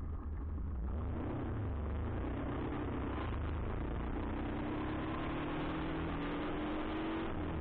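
Yamaha R15 V3's single-cylinder engine pulling on the move: its pitch rises steadily as it accelerates, then drops suddenly near the end at a gear change. A steady rush of wind and road noise sits under it.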